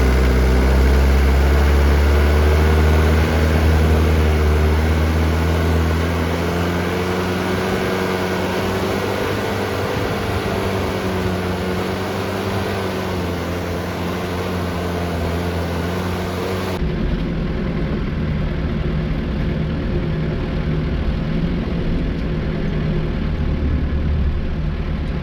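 Daihatsu Taft F50 engine running at low revs, a steady drone whose pitch drifts slightly. The heavy low rumble eases after a few seconds, and the sound changes abruptly about two-thirds of the way through.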